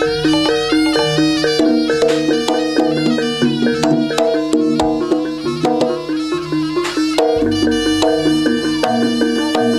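Jaranan gamelan accompaniment playing: a fast wind-instrument melody over metallophones, gongs and drums.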